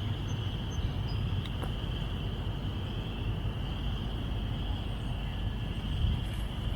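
Steady outdoor background: a constant high insect drone, such as crickets or cicadas, over a low rumble.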